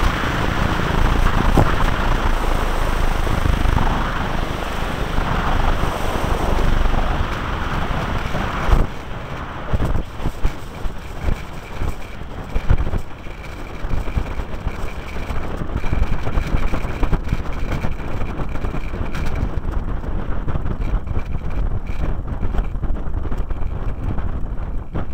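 Van's RV-8's piston engine and propeller running at low power while taxiing, picked up by a tail-mounted camera's microphone with heavy wind buffeting. The rushing noise eases about nine seconds in.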